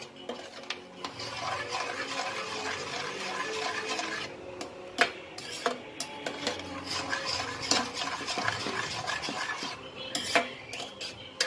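A spoon stirring thick pav bhaji in a cooking pot, scraping through the bhaji and along the pot, with several sharp knocks of the spoon against the pot.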